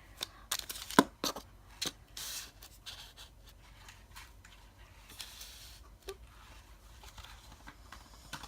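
Plastic-and-cardboard blister packaging being torn and pulled apart by hand. It gives sharp crackles and snaps through the first couple of seconds, then goes on as quieter crinkling and rustling.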